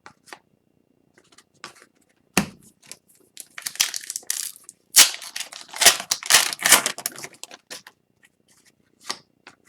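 Foil wrapper of a hockey card pack being torn open and crinkled: a few sharp clicks, then a dense run of crackly rustling in the middle that thins out near the end.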